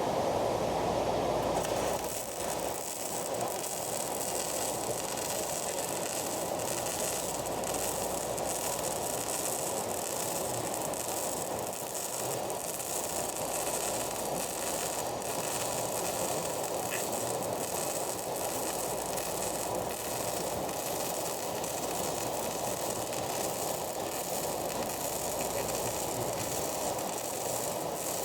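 Arc welding: a steady crackling sizzle from the welding arc as a bead is run.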